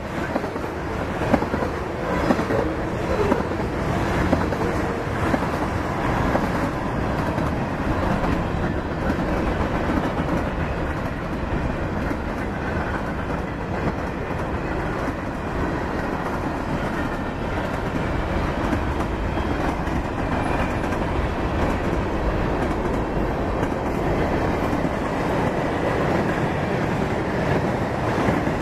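Freight cars rolling past on steel wheels: a steady rumble with a run of wheel clicks over the rail joints.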